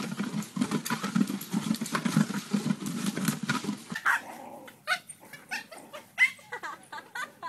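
A dog growling as it tugs at a toy, then, after a cut, a run of short, sharp, high yaps from small dogs.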